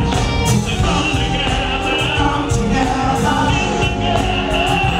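Live R&B vocal group performance: a male lead singer singing into a handheld microphone over a backing band with keyboards and bass guitar.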